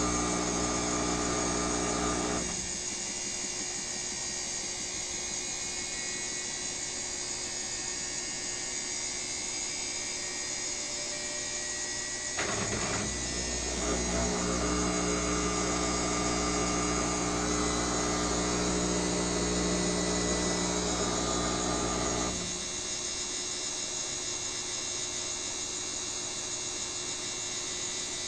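Washing machine motor running with a steady whine. It stops about two and a half seconds in, starts up again near the middle, and stops again about three-quarters of the way through.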